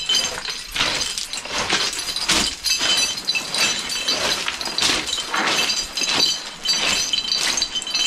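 Footsteps crunching on rounded beach pebbles and cobbles, about one step every two-thirds of a second, with a light metallic jingle from climbing gear on a harness.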